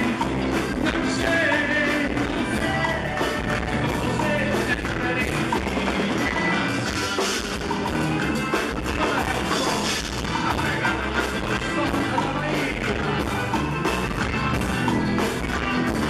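A band plays upbeat music while a male singer sings into a microphone.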